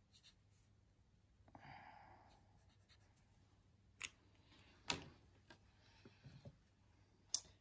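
Near silence, broken by a marker pen scratching briefly on paper about a second and a half in, then a few sharp clicks spread through the rest.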